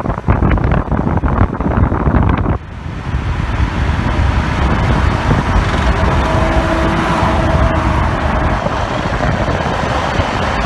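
Wind buffeting a phone's microphone held outside a car moving at highway speed, over tyre and road noise. The buffeting is heavy for the first two and a half seconds, then drops suddenly to a steadier rush.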